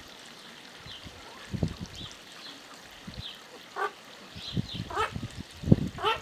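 Hooded mergansers on the water during courtship display, with three short, rising, pulsed calls in the second half, typical of displaying drakes. Faint high chirps run underneath, and several low thumps come through, the loudest near the end.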